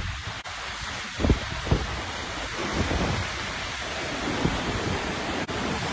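Wind buffeting the microphone over the steady wash of ocean surf, with two sharper low bumps from gusts about a second and a half in.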